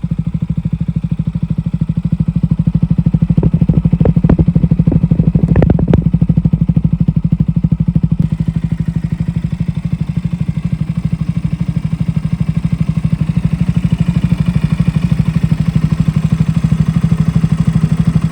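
KTM Duke 125's single-cylinder engine idling through a Dominator GP1 exhaust with no dB killer, a loud, fast, steady putter. A few sharp knocks come through about four to six seconds in.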